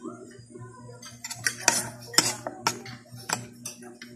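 Metal fork clinking and scraping against a plate while eating, with a cluster of sharp clinks in the middle.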